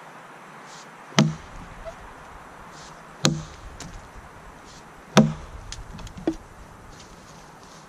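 Council Tool boys axe chopping into a felled log: three heavy strikes about two seconds apart, with a few lighter knocks just after the third.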